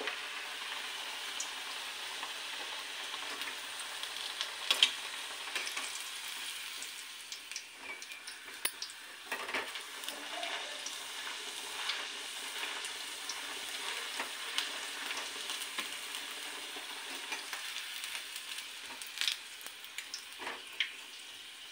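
Onion kachori deep-frying in hot oil in a steel kadai: a steady sizzle, with now and then a sharp clink of the metal spatula turning it. The sizzle gets quieter near the end as the kachori is lifted out.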